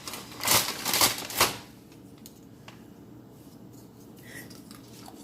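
Rustling and crinkling of cheese packaging as a little cheese is taken out: three short bursts in the first second and a half, then quiet handling.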